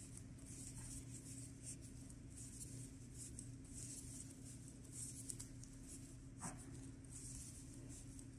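Faint, soft scratchy rustling of yarn being drawn over wooden knitting needles as purl stitches are worked, a brushing sound recurring about every second, with one small needle click about three-quarters of the way through.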